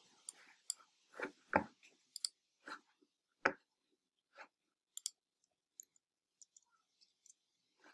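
Computer mouse clicks and desk knocks picked up by a desk microphone: a dozen or so short clicks at irregular intervals. The loudest two, about a second and a half and three and a half seconds in, carry a dull thud.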